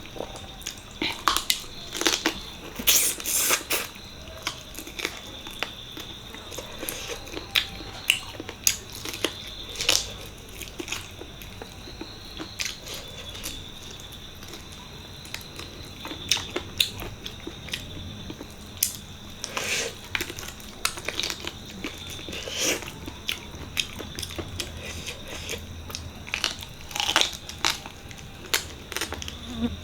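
Close-up eating sounds: irregular chewing, biting and wet mouth smacks while eating mutton paya curry with rice, with frequent short clicks.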